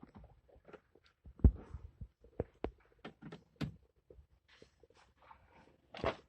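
Scattered clicks and knocks of handling, the loudest about a second and a half in.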